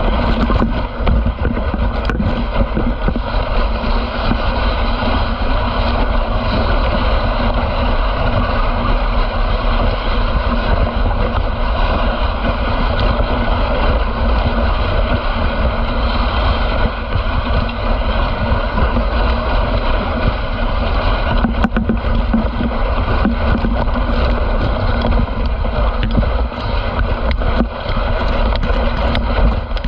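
Steady rushing of a moving dog sled, its runners scraping and hissing over packed snow, with wind rumbling on the microphone.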